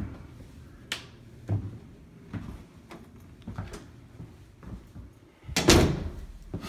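Footsteps walking through a house, a soft knock every half second or so, then an interior door being opened about five and a half seconds in, the loudest sound.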